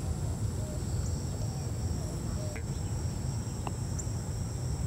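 Steady high-pitched drone of insects over a low outdoor rumble, with a faint tick near the end as a putter strikes a golf ball.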